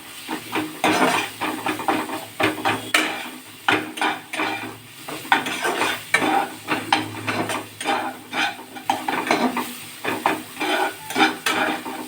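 Masala paste of onion, tomato and ground spices sizzling in oil in a pan while it is stirred and scraped against the pan with frequent, irregular strokes. This is the kosha stage, where the spices are fried down until cooked through.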